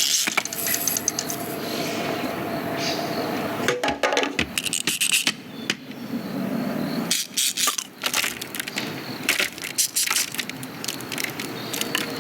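Movie sound effects: a run of sharp clicks, knocks and rattles, clustered about four seconds in and again from about seven to eleven seconds, over a steady background rumble.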